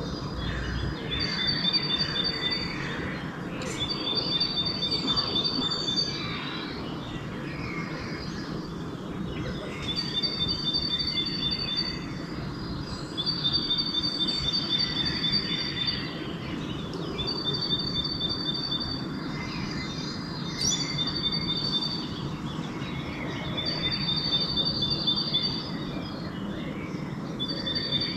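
A songbird repeatedly sings a short, high, rapid phrase: a run of quick notes on one pitch, then a run slightly lower. The phrase comes back every three to four seconds, with a longer pause near the middle. Fainter chirps from other birds sit over a steady low background rumble.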